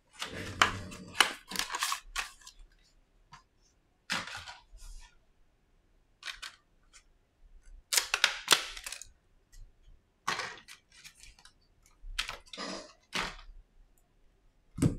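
Clear rigid plastic clamshell packaging being handled and opened: sharp plastic clicks and crackles in bursts every second or two, with a single sharp click near the end.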